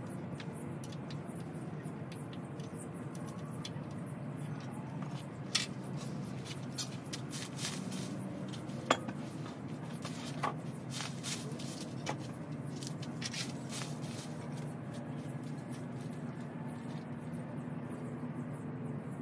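Scattered light knocks and clicks of a wooden patio bench being handled and set down on a brick patio, the sharpest knock about nine seconds in, over a steady outdoor background.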